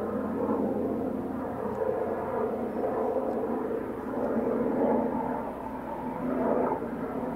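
AgustaWestland AW169 air ambulance helicopter flying past overhead: steady rotor and twin-turboshaft engine noise that swells and eases a little as it passes.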